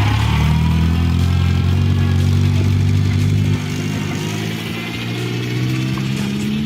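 1987 Toyota Corolla AE82's four-cylinder engine revved hard and held high, then dropping back about three and a half seconds in. The engine has been run out of oil and has a knocking bottom end, which the owner expects to throw a rod.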